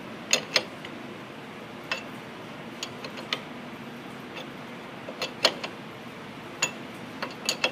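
Sharp metallic clicks and clinks, about a dozen at irregular spacing, from a steel combination wrench being worked and refit on a lug nut and a pry bar knocking against the wheel studs. The lug nut is being turned down to pull a replacement wheel stud's splines into the hub.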